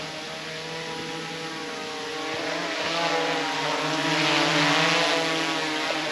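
Small quadcopter drone in flight, its propellers giving a steady buzzing whine made of several tones, growing louder about halfway through.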